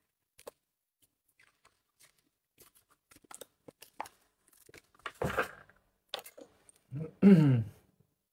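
Gift packaging being handled and opened by hand: scattered light clicks and rustles, then short bursts of tearing and crinkling about five seconds in. Near the end comes the loudest sound, a brief low vocal sound falling in pitch.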